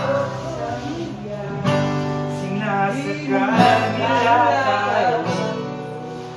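Background song with strummed acoustic guitar and a voice singing the melody.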